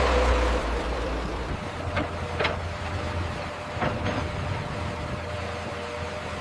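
Heavy machinery rumbling, loudest in the first second and a half, over a faint steady hum, with a few sharp metallic knocks about two and four seconds in.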